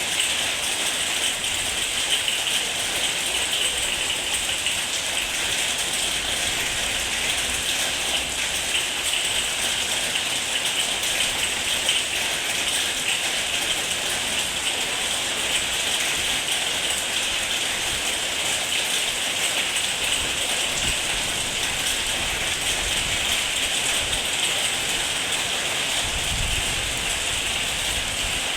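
Heavy rain falling steadily as a dense, even hiss of drops, with a low thunder rumble coming in near the end.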